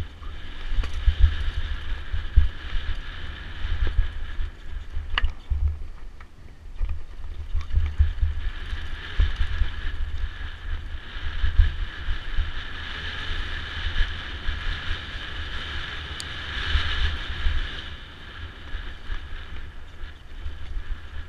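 Mountain bike descending a rocky dirt singletrack: wind buffeting the camera microphone, with a steady rolling hiss from the tyres and drivetrain and the rattle of the bike over stones, including a sharp knock about five seconds in.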